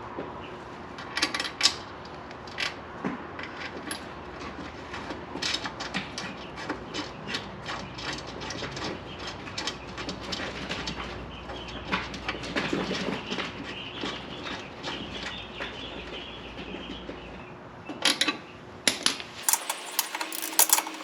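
Irregular metallic clicks and clatters of hand tools and metal parts being handled on a mower bagger bracket, with no steady motor sound.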